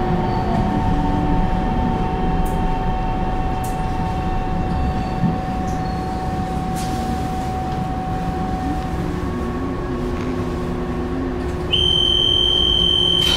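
Taiwan Railway EMU700 electric multiple unit heard from inside the car as it brakes to a stop: wheel and running rumble with a steady electric motor whine that dies away about nine seconds in. Near the end a steady high electronic beep starts suddenly, the door warning tone just before the doors open.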